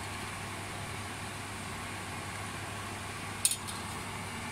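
Steady even hiss with a low hum underneath, and one short sharp click about three and a half seconds in.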